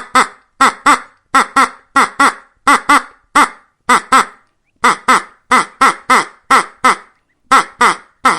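Duck quacking: short, harsh calls, mostly in quick pairs about two a second, with brief pauses about four and a half and seven seconds in, stopping near the end.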